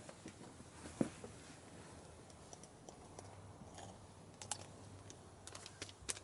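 Wood fire crackling in a small camp stove: irregular sharp ticks and pops, the sharpest about a second in and a run of them near the end.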